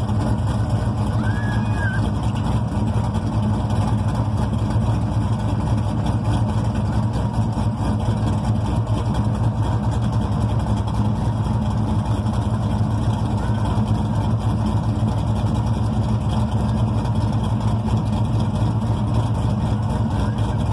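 Chevrolet Camaro Z28's LS1 V8 idling steadily, heard close to its exhaust pipe under the car.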